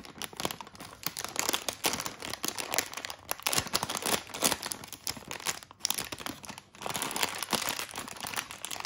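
Crinkly plastic snack wrapper being worked open by fingers at its crimped seal: a rapid, uneven run of crackles and small tearing sounds. The pack is tightly sealed and resists opening.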